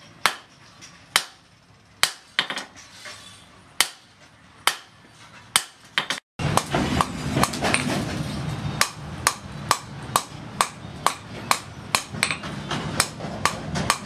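Hand hammer striking a red-hot steel sword blade on a steel post anvil, with sharp metallic blows. They come about once a second at first. After a brief break about six seconds in, they come evenly at about two per second over a steady low rumble from the forge's blower.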